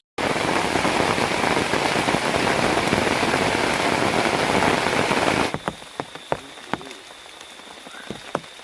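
Heavy rain pouring down, loud and steady, then cutting off suddenly about five and a half seconds in to a quieter wet forest with scattered dripping raindrops and frogs calling.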